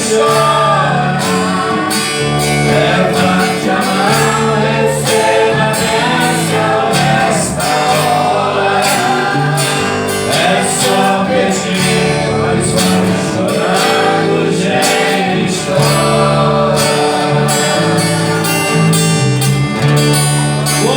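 Gospel worship band playing, with guitar over steady bass notes and a regular beat, and a melody line weaving on top.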